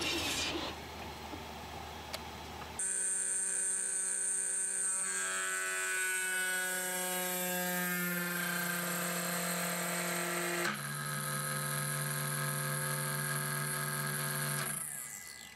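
Snapmaker 2.0 CNC spindle and rotary-module motors running while milling a pink epoxy tooling-board cylinder: a steady whine of several tones that starts suddenly about three seconds in. Some of the tones rise in pitch partway through, the sound changes abruptly about eleven seconds in, and it fades just before the end. Before it starts there are only a few faint clicks.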